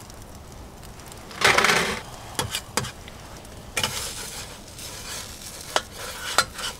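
Okonomiyaki sizzling on an iron griddle plate while a metal spatula scrapes and clicks against the plate, pushing the pancake into shape. A loud burst of noise comes about a second and a half in, and the sizzling hiss picks up about four seconds in.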